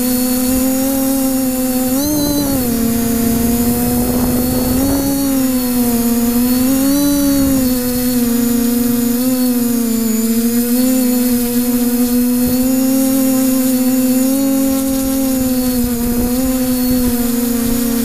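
Multirotor drone's brushless motors and propellers, driven by ZTW Spider 40A ESCs on SimonK firmware, humming steadily in flight. The pitch rises and dips briefly with throttle changes about two, five and seven seconds in. Wind rumbles on the onboard camera's microphone.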